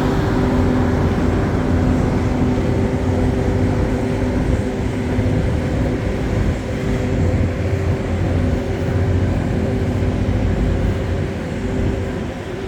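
Steady machinery hum over a low rumble, holding a few constant tones, without a break.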